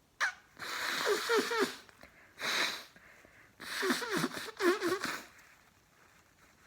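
A person blowing their nose hard twice, each blow about a second and a half long with a wet, fluttering squeak, and a sharp sniff in between. It is the nose being cleared after chhinkni herbal snuff.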